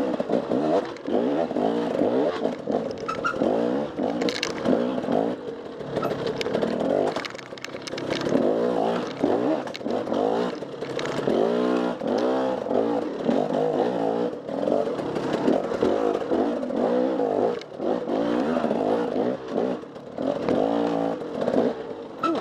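Enduro dirt bike engine revving up and down over and over as the throttle is worked, with scattered sharp clatters and knocks.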